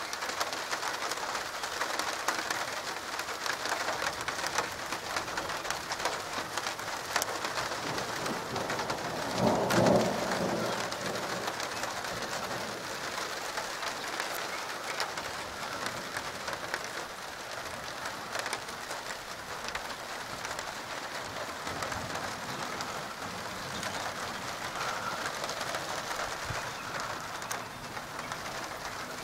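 Steady rain falling, with many small drops ticking throughout. About ten seconds in, a roll of thunder swells and fades over a couple of seconds.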